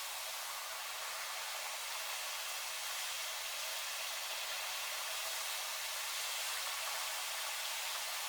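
Heavy rain falling, a steady even hiss with no gusts or breaks.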